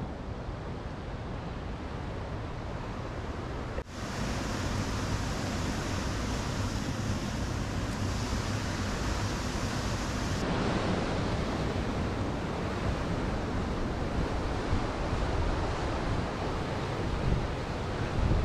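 Steady rush of a river rapid pouring over rocks, mixed with wind on the microphone; the sound shifts abruptly about 4 and 10 seconds in.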